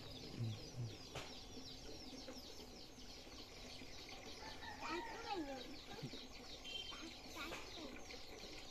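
Faint, continuous chirping of many birds, with a hen clucking briefly about five seconds in.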